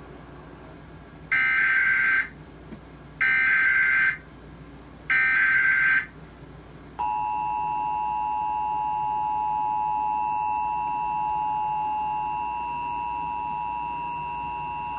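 Emergency Alert System SAME header: three one-second bursts of screeching digital data tones, about two seconds apart. Then the EAS two-tone attention signal (853 and 960 Hz played together) sounds steadily for about eight seconds, marking the start of a Required Monthly Test.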